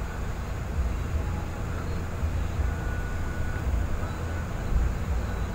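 Steady low rumble of road and engine noise inside a moving Toyota vehicle's cabin on a highway.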